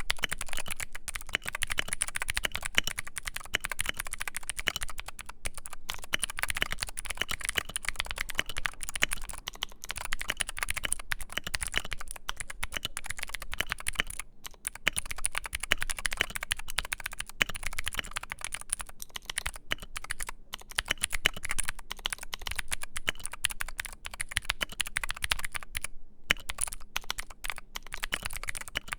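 Steady, fast typing on a modded Keychron Q3 mechanical keyboard fitted with filmed and lubed Gateron Phantom Blue clicky switches, with a clatter of key clicks and brief pauses about 14 and 26 seconds in.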